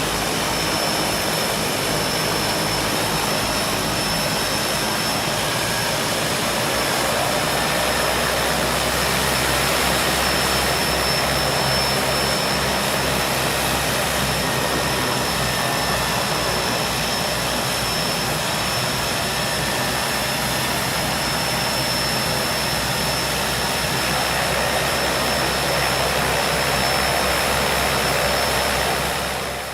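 Beechcraft King Air's twin PT6A turboprop engines running steadily at taxi power, heard from outside: a steady high turbine whine over the propeller and engine noise. The sound begins to fade at the very end.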